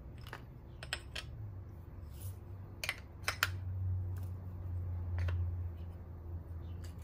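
Scattered light clicks and taps as whole spices and a spoon knock against small porcelain dishes while the spices are tipped into a spice bag, over a low steady hum.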